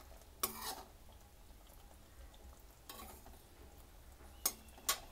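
Metal spoon stirring through thick curry gravy in a pan, with a wet scrape about half a second in and another near three seconds, then two sharp clicks of the spoon against the pan near the end.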